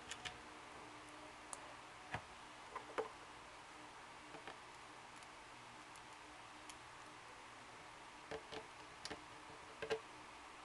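Small plastic Lego pieces clicking and tapping as fingers handle them and press them together, a dozen or so sharp little clicks, often in pairs, with gaps of silence between; the loudest come about three seconds in and just before the end.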